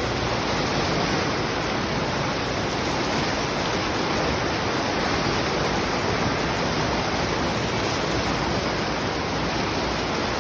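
Water pouring over a spillway, a steady loud rush.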